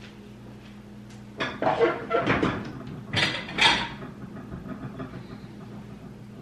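Kitchen cupboard opened and ceramic dishes clattering as a plate is taken out: a cluster of knocks and clinks from about a second and a half in to about four seconds in, over a low steady hum.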